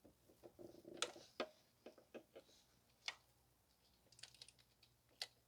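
Light, scattered metallic clicks and taps from a socket and ratchet being fitted and worked on the camshaft position sensor's 10 mm hold-down bolt, with a quick run of small clicks a little past the four-second mark.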